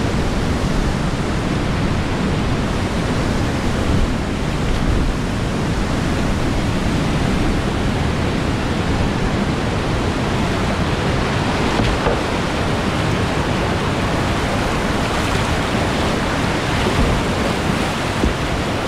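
Whitewater rapids rushing steadily close around a kayak, a constant loud wash of churning river water.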